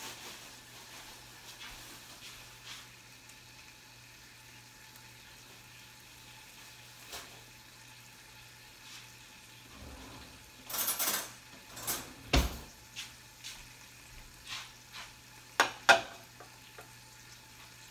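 Sauerkraut and corned beef sizzling quietly in a skillet on a gas burner, heating through. Later, a run of clinks and knocks from dishes and utensils, two sharp clicks near the end the loudest.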